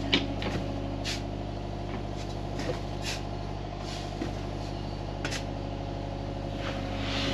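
Excavator's diesel engine running steadily, with short sharp clicks and knocks now and then, the loudest just after the start.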